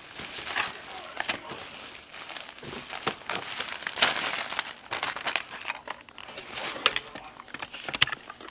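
Clear plastic packaging crinkling and rustling as it is handled, in irregular bursts with sharp crackles.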